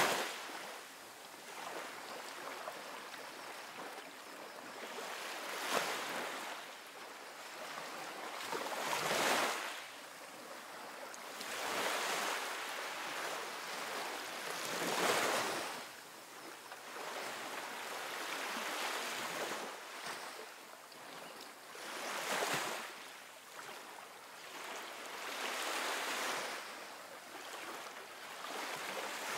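Wire hand whisk stirring a thick, creamy ice cream mixture in a glass bowl: a wet swishing that swells and fades every few seconds.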